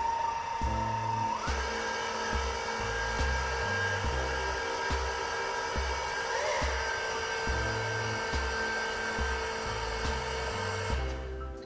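A small electric motor whining steadily, stepping up in pitch about a second in and stopping near the end. Background music with a steady bass beat plays underneath.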